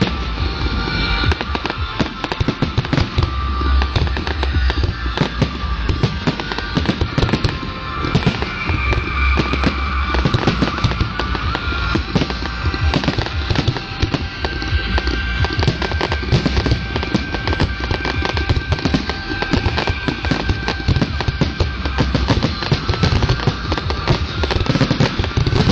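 Fireworks display finale: aerial shells bursting in a rapid, unbroken barrage of bangs and crackling.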